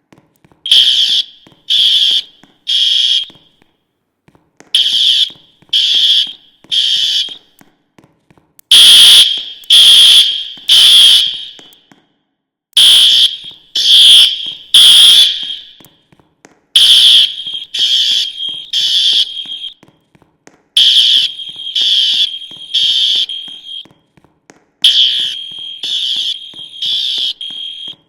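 School fire alarm sounding the temporal-three evacuation tone: three high beeps about a second apart, then a pause, the pattern repeating every four seconds. The middle sets are the loudest.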